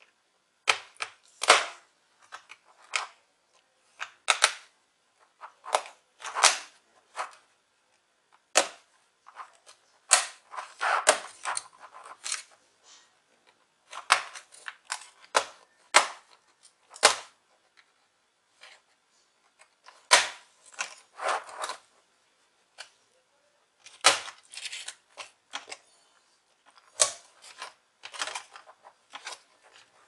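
Plastic snap clips of a Lenovo V110 laptop's case popping loose as the case is pried apart by hand: many sharp, irregular clicks and cracks, often in quick clusters, with short pauses between them.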